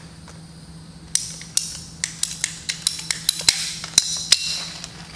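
PEX tubing cutter clicking about a dozen times in quick, uneven succession as it cuts the end off a PEX water line to leave a clean, square edge.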